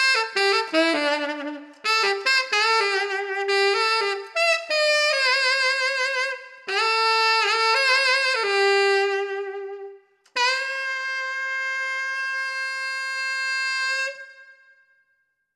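Tenor saxophone playing a slow melody, with vibrato on some of the longer notes, then a short break and one long held note that fades away near the end.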